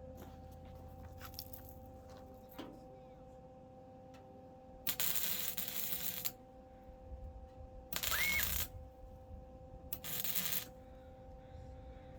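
Three short bursts of welding, tack welds on car body sheet metal, each lasting under a second or so, with a steady hum underneath.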